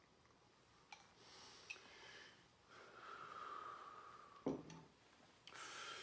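A man breathing hard in sharp breaths through his nose and mouth, reacting to a spoonful of extra-hot horseradish. Two small clicks come about a second in, and a single thump about halfway through is the loudest sound.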